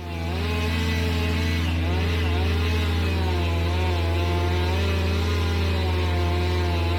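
An engine running steadily at a constant speed, with a strong low hum and slowly wavering higher tones.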